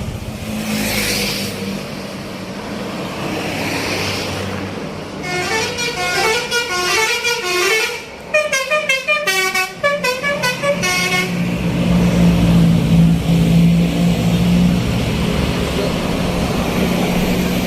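A bus's "telolet" multi-tone musical horn plays a quick tune of short notes stepping up and down for about six seconds in the middle, over road noise. A loud, low, steady drone follows it.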